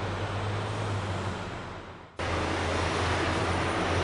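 EMD SW1200 switcher locomotive's diesel engine running with a steady low drone under a rushing hiss. The sound fades out and cuts back in louder about two seconds in.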